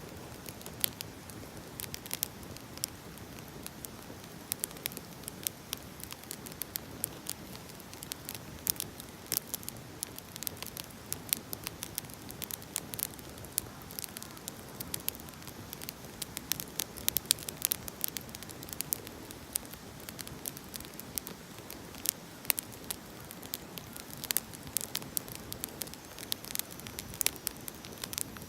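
Burning firewood crackling and popping: irregular sharp snaps, several a second, over a steady soft hiss of the flames.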